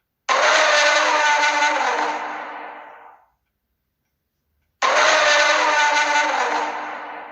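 Siren Head creature sound effect: a harsh, distorted siren-like blare that starts suddenly, bends down in pitch and fades out over about three seconds, played twice.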